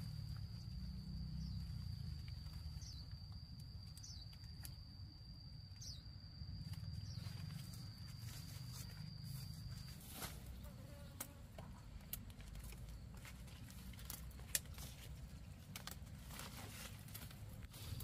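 An insect singing one steady high-pitched note, which stops about ten seconds in. Under it a low rumble runs throughout, with scattered light clicks and taps and one sharper tap near the end.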